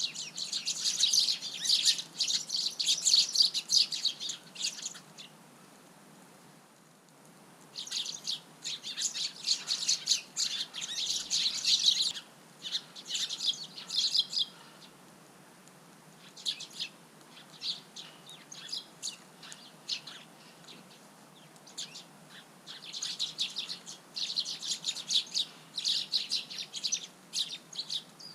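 A flock of Eurasian tree sparrows chirping rapidly in bouts, with short lulls of a few seconds between them.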